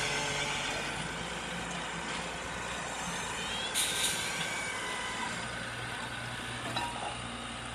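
Hydraulic excavator's diesel engine running steadily, with a brief sharp noise about four seconds in.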